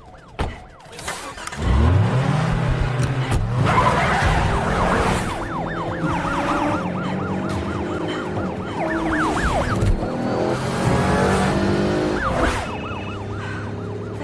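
Police car sirens wailing in quick rising-and-falling sweeps, several overlapping, over a car engine that revs up hard about two seconds in and keeps running at speed.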